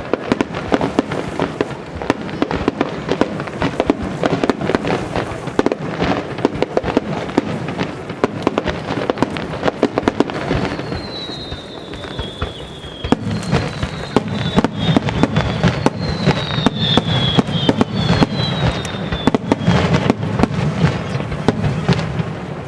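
Starmine fireworks barrage: a dense, continuous run of shell bursts and crackling. It grows heavier and deeper about halfway through, and several short high whistles fall slightly in pitch during the second half.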